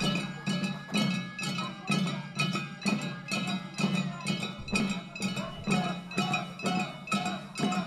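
Jangara nenbutsu music: hand-held kane gongs struck in a steady beat of about two strokes a second, ringing over the thuds of small waist-slung taiko drums. Chanting voices join in about two-thirds of the way through.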